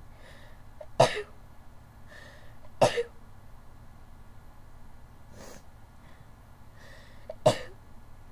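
A person sneezing three times in a fit, each sharp sneeze preceded by a quick in-breath, with a fainter breath between the second and third. The uploader puts the fit down to allergies.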